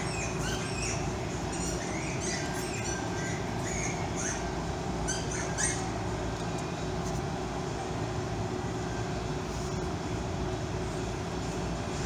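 Steady mechanical background drone with a faint steady hum, and short high chirps, bird-like, scattered through the first half.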